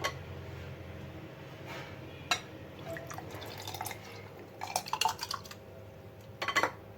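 Watermelon milkshake being poured into serving glasses: soft liquid pouring and dripping, with a few light knocks and clinks about two seconds in, around the middle, and near the end.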